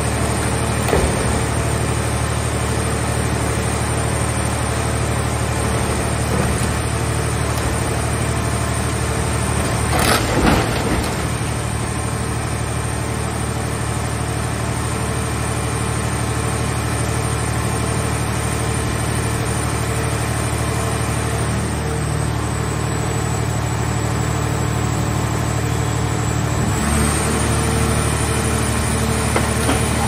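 Mobile car-shell baler's hydraulic power unit running steadily. About ten seconds in there is a short metallic clatter as the crushed car body is dropped into the press chamber. Near the end the machine's tone shifts as the chamber lid starts to close.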